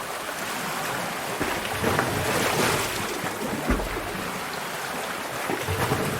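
Sea water surging and washing inside a sea cave, a steady rush of water noise with one low thud about two-thirds of the way through.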